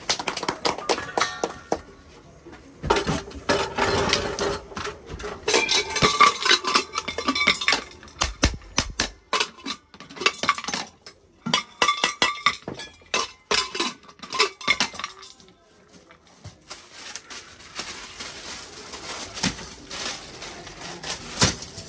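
Irregular metal clinks and knocks of an aluminium pressure cooker and its lid being handled, some strikes ringing briefly.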